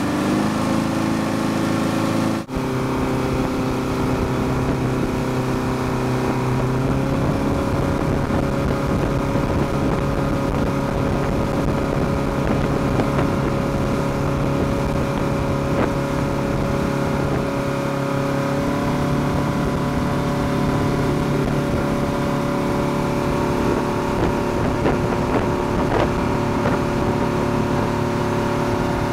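Motorboat engine running at speed while towing an inflatable tube, its steady drone mixed with rushing water. There is a momentary break in the sound about two and a half seconds in, and the engine's pitch steps up slightly about seven seconds in.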